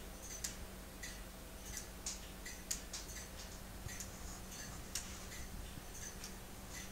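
K'nex plastic clock movement ticking, about two light clicks a second with a slightly uneven beat, from its escapement as the gear train turns.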